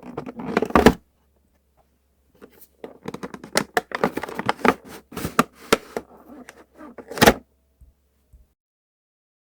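Toy box packaging being handled: a run of sharp clicks, scrapes and crinkles, with a short pause after about a second and one loud crack about seven seconds in.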